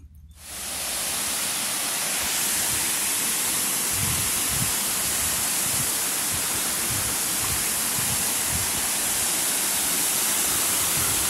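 Steady rush of flowing water, a hiss strongest in the highs, starting abruptly about half a second in.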